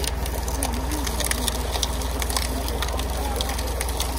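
Tractor's diesel engine running steadily to drive a sugarcane juice crusher, a fast low chugging with scattered light clicks over it.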